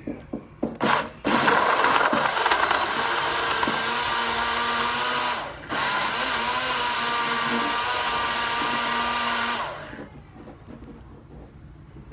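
Small personal blender running as it blends a banana and milk smoothie, with a steady motor whine. A few knocks come first, then the motor runs for about four seconds, stops for a moment, runs about four seconds more and cuts off.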